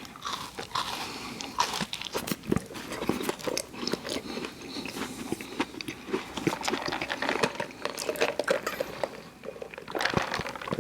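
Close-miked chewing and biting of fast food: irregular crunchy crackles and wet mouth sounds, easing off about nine seconds in before another bite near the end.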